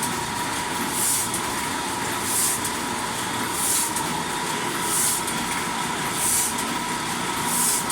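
Offset printing press running, its motor driven through a phase converter fitted with new capacitors. A steady whine under a hissing swish that comes back about every 1.3 seconds.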